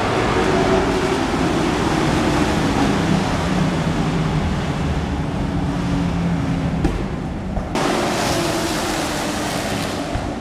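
The engines of a pack of dirt-track race trucks running at speed: a loud, steady, mixed drone of many engines together. The sound thins out for under a second about seven seconds in, then comes back.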